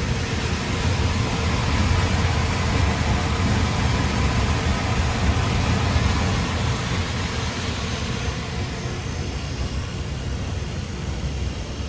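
Hurricane rotary parts dryer running with its air blower and drum drive on: a steady low hum under an even rush of air, very quiet for an industrial machine.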